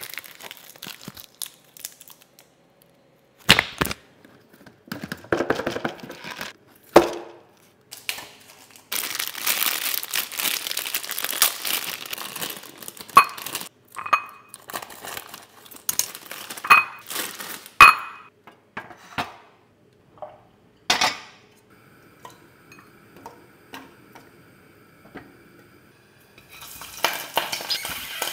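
Plastic packaging of frozen chorizo being handled, crinkled and cut open with scissors, with sharp clicks and knocks of the sausages and utensils against a glass bowl. Near the end the sausages begin sizzling in hot oil in a pan.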